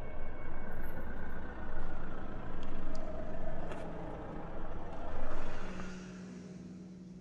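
Street traffic noise with a heavy vehicle's engine swelling up several times as it passes. About six seconds in it drops away to quiet indoor room tone with a low steady hum.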